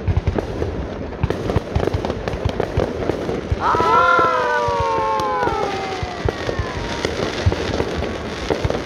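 Aerial fireworks bursting, a continuous run of bangs and crackles. About three and a half seconds in, a long falling tone with overtones rises over them and fades over about three seconds.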